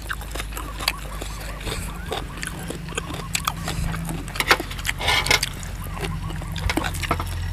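Eating and serving sounds: chewing, with scattered clicks of a metal spoon against the metal food tray, over a low steady rumble.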